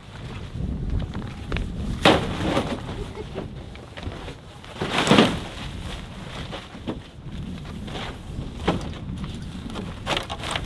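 Wind rumbling on the microphone, with rustling and knocks from a truck-bed tent and camping gear being handled; two louder bursts of handling noise come about two seconds in and about five seconds in, and smaller knocks near the end.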